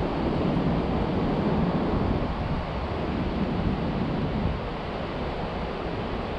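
Steady rushing of river water, with wind buffeting the microphone.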